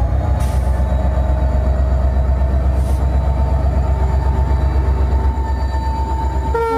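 WDP4D diesel-electric locomotive engine running with a deep, steady hum and a slowly rising whine as it works up for departure. Two short hisses of air come early, and the locomotive's horn starts to sound near the end.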